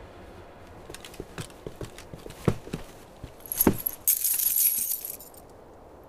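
Metal clinking and jangling: scattered light clicks, two sharper knocks, then a bright metallic jangle lasting about a second that stops suddenly.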